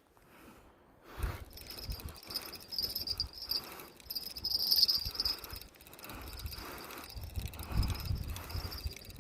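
Insects chirping in a steady high-pitched trill that starts about a second in, with irregular low rumbling underneath.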